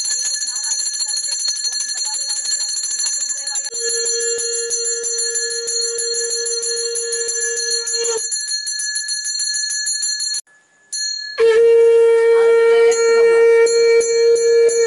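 Puja hand bell rung rapidly and continuously during aarti, with a conch shell blown in two long, steady blasts: one from about four to eight seconds in, and another from about eleven and a half seconds to the end.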